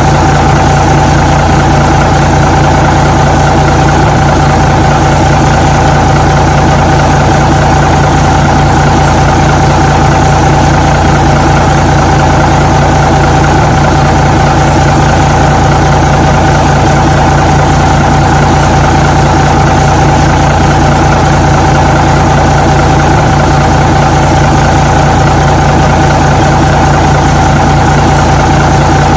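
Truck engine idling steadily, a loud, even rumble with a constant whine that does not change.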